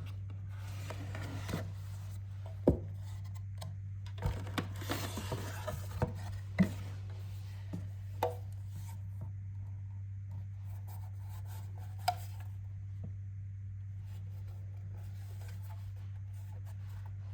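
Cardboard box and packaging being handled: rubbing and scraping with a few sharp knocks, the loudest near 3 and 7 seconds in, then quieter handling with one more knock about 12 seconds in. A steady low hum runs underneath.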